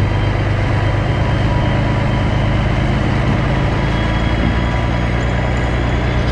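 Vehicle engine running steadily, a constant low hum.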